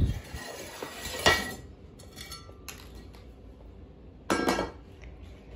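Clinks and clatters of kittens knocking small hard objects about on a laminate floor: three separate knocks, the last, about four seconds in, the loudest and ringing briefly.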